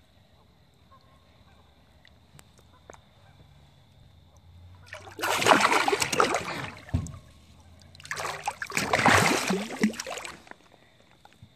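Hooked channel catfish thrashing at the water's surface beside a boat, throwing up loud splashing in two bouts, about five seconds in and again about eight seconds in.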